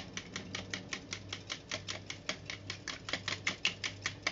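Wire balloon whisk beating raw eggs in a bowl, its wires clicking against the bowl in a fast steady rhythm of about six strokes a second.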